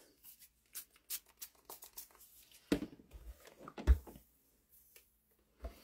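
A few short, faint hisses from a pump spray bottle of Flatter pressing spray. Then a Singer clothes iron is set down and pushed over a quilt block on a wool pressing mat, with dull thumps about three and four seconds in and another near the end.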